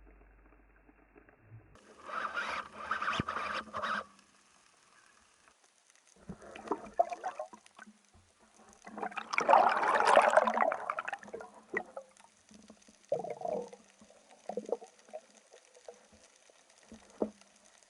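Water bubbling and sloshing in irregular bursts, the loudest about ten seconds in, with a sharp click near the end.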